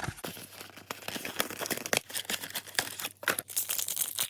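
Magic: The Gathering draft booster packaging being torn open and crinkled: a run of irregular tearing and crackling noises.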